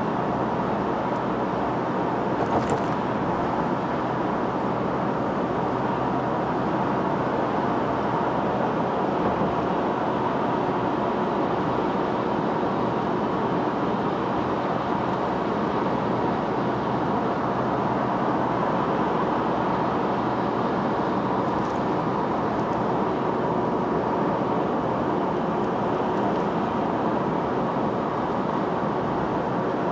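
Steady road and engine noise of a car cruising at speed, heard from inside the cabin, with a faint steady hum and a few faint ticks.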